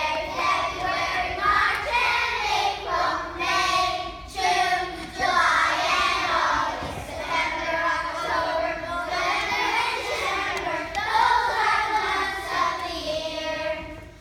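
A class of second-grade children singing together as a group, stopping near the end.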